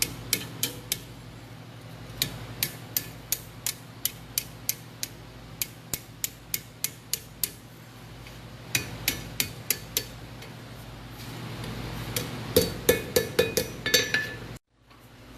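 Blacksmith's hammer striking hot iron on an anvil in a steady run of blows, about three a second with short pauses, the last few near the end ringing out. A steady low hum runs underneath.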